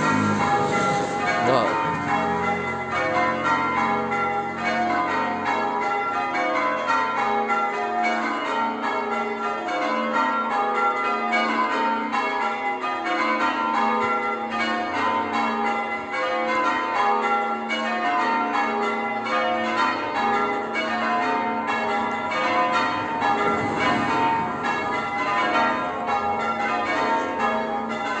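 Church tower bells being change-rung: a continuous, even sequence of bell strikes whose order keeps shifting, with the notes overlapping as each bell rings on.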